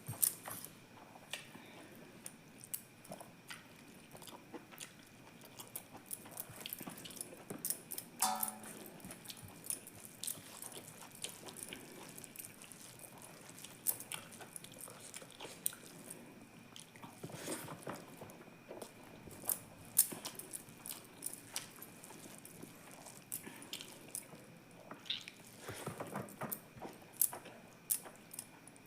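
Close-up eating sounds: a person chewing and biting, with irregular wet mouth clicks and smacks, and a brief pitched sound about eight seconds in. A faint steady high tone sits underneath.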